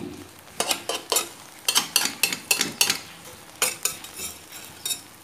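A cooking utensil scraping and clicking against a nonstick frying pan in quick, irregular strokes, about three a second, as a thin egg omelette fries with a faint sizzle underneath.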